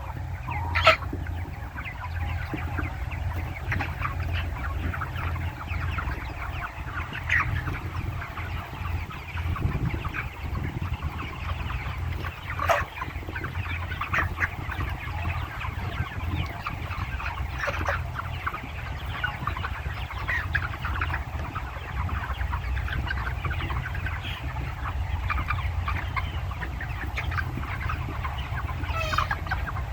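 A large flock of broiler chickens clucking and chattering without a break, with a sharper single call now and then, over a steady low hum.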